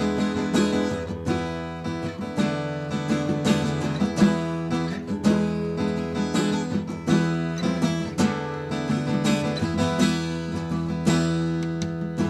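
Background music with a strummed acoustic guitar, steady strokes over held chords.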